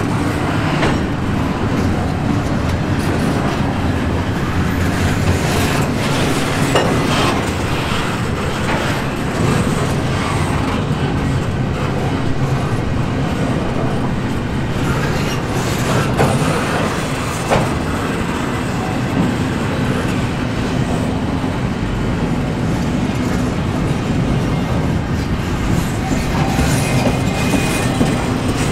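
Double-stack intermodal freight cars rolling past close by: a steady rumble and clatter of steel wheels on the rails, with a few sharp knocks from the cars along the way.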